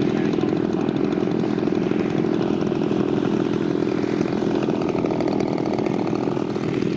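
Engine of a large radio-controlled model F4U Corsair running steadily as the plane flies low, a continuous buzzing drone with a rapid even pulse.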